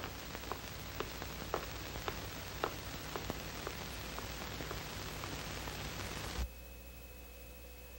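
Steady hiss of an old film soundtrack with a series of light clicks, about two a second at first, thinning out. At about six and a half seconds there is a soft thump and the hiss drops off abruptly to a quieter background with a faint high steady tone.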